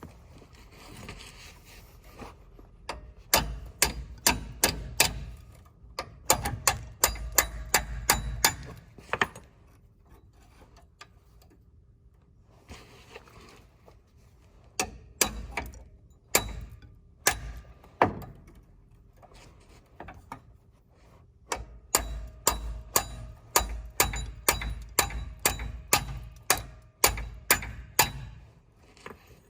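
Hammer striking a punch, metal on metal, in three runs of quick taps about two or three a second with pauses between, to drive out a stuck pin.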